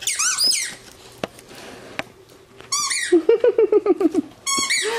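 Squeaker inside a plush dog toy squeaked again and again as a dog chews it: sharp high squeals at the start and near the end, with a fast run of lower squeaks in between.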